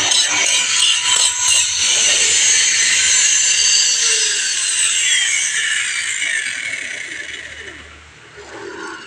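A power tool running loud and hissy, then winding down with a falling pitch and fading away over the last few seconds.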